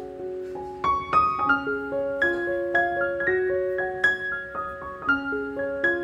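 Piano background music: a slow melody of single struck notes, a few each second, each one fading out.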